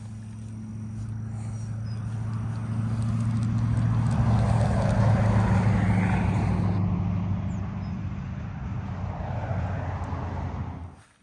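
A motor vehicle's engine hum passing by. It grows louder to a peak about five seconds in, fades, then cuts off suddenly near the end.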